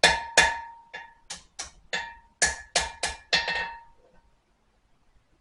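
Hammer striking a forged spring-steel knife blade on the anvil to straighten it: about ten quick ringing blows, stopping about four seconds in.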